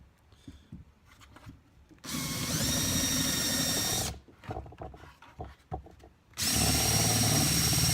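Handheld electric drill with a countersink bit, run in two bursts of about two seconds each to countersink bolt holes in a hardwood handle. Each burst spins up with a brief rising whine, then runs steadily. The first starts about two seconds in, the second about six and a half seconds in.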